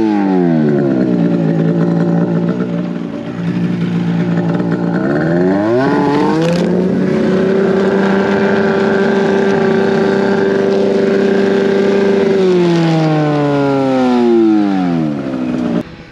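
Snowmobile engine revving hard with its track spinning and throwing snow. The pitch falls at first, climbs again about five seconds in, holds high for about six seconds, then winds down and cuts off suddenly near the end.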